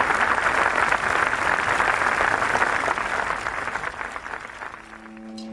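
Audience applauding, a dense crackle of many hands clapping that fades out over the last couple of seconds. A held musical note begins near the end.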